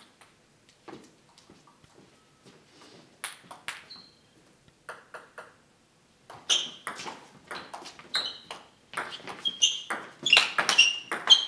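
Table tennis rally: the ball clicking off the bats and the table, several hits a second, starting about six seconds in and getting louder and quicker near the end. Before that there are only a few scattered faint taps.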